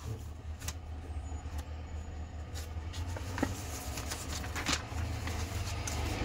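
Steady low rumble of a vehicle, heard from inside it, with scattered rustles and clicks from paper pages being handled.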